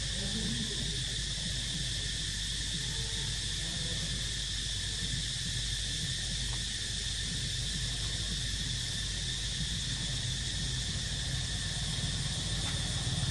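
Steady insect chorus, a continuous high-pitched drone, over a low steady hum.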